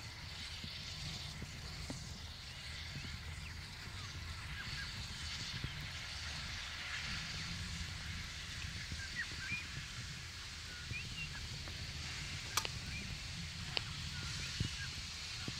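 Small birds chirping often over a faint low rumble and hiss from the distant steam locomotive J549, a 2-8-0, as it gets under way with steam blowing from its cylinders. Two sharp clicks near the end.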